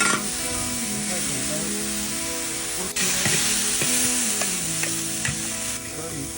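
Shredded lean pork and garlic sizzling in hot rapeseed oil as they are stir-fried in a pan, with a steady hiss and small clicks of the spatula.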